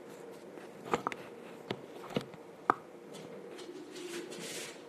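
Handling noise as a phone is set up for filming: about five sharp taps and knocks in the first three seconds, over a steady low hum, then a brief rustle near the end.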